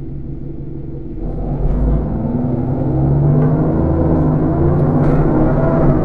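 Enviro 400 Trident double-decker bus's diesel engine heard from the upper deck: idling, then from about a second in it grows louder and its note climbs slowly in pitch as the revs rise under load.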